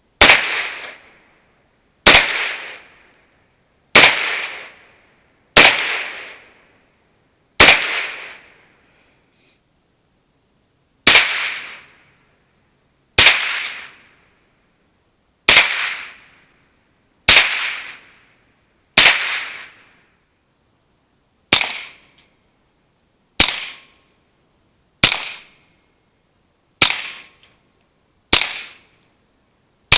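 Ruger PC9 9mm direct-blowback carbine firing about fifteen single shots, roughly one every two seconds, in a sound test of a SIL9-R suppressor. Each shot is a sharp report with a short ringing tail, with a pause of about three seconds after the fifth shot.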